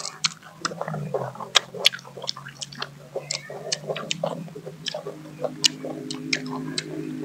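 Several people crunching and chewing firm mango slices: a quick irregular run of sharp crunches and wet chewing, with a low steady hum underneath.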